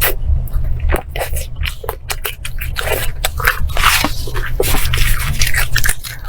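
Close-miked eating: biting and chewing grilled beef ribs, with many short wet clicks and scrapes.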